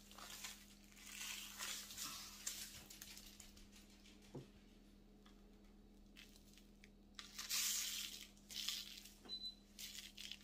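Faint gritty rustling and scrubbing as hands rub dry spice rub into a raw pork butt, with rub granules shaken out of a plastic container onto the meat. It comes in irregular bursts, the loudest about three-quarters of the way through.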